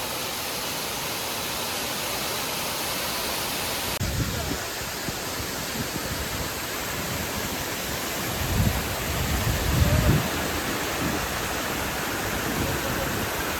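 Waterfall pouring down onto rocks, a steady rushing hiss. Low rumbles hit the microphone about four seconds in and again around nine to ten seconds.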